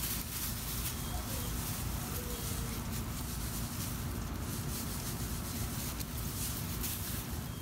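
Steady rustling from puppies tussling on grass and a hand rubbing their fur, over a low rumble, with a few faint short squeaks in the first couple of seconds.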